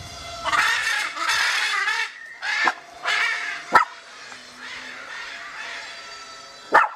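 Blue-and-yellow macaws screeching in flight: a string of harsh, raspy calls in the first half, then a quieter stretch and one sharp short shriek near the end.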